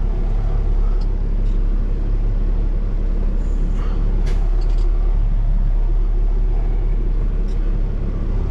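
Peterbilt 389 semi truck's diesel engine running at low speed, heard from inside the cab while the rig is slowly reversed: a steady low rumble with a few faint clicks.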